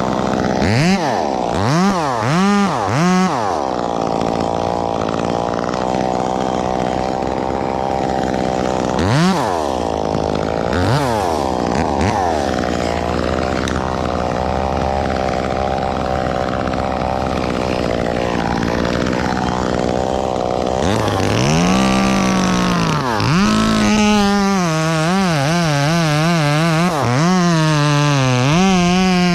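Chainsaw engine revving in quick blips, running steadily between them. In the last third the pitch wavers up and down rapidly and continuously.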